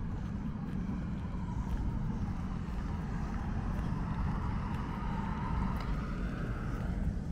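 Steady low road-traffic rumble, with a car's tyre noise building as it approaches along the road and passing close near the end.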